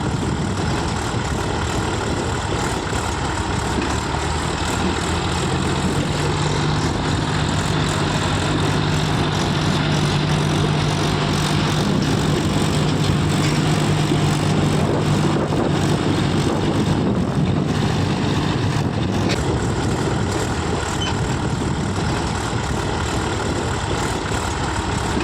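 Diesel engine of heavy machinery running steadily, with a low hum that strengthens for several seconds in the middle.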